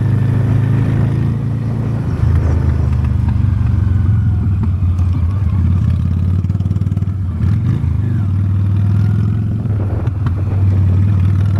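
Honda Steed V-twin motorcycle engine running. Its pitch drops about two seconds in and rises again near the end.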